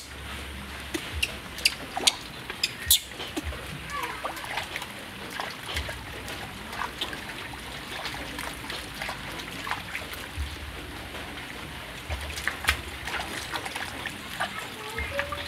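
Water splashing, dripping and trickling in a stainless-steel basin as a baby monkey is washed by hand, with many small sharp splashes, a cluster of them about two and three seconds in and again near the end.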